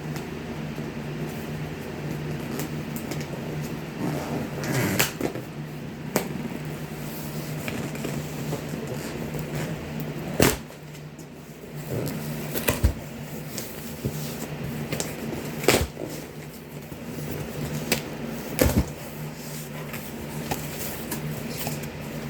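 A cardboard shipping box and its packing paper being handled while it is unpacked: scattered knocks, taps and rustles over a steady low hum.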